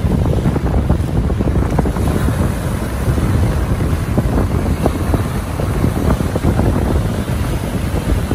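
Strong wind buffeting the microphone with a steady low rumble, over waves breaking and washing among the rocks of the shoreline.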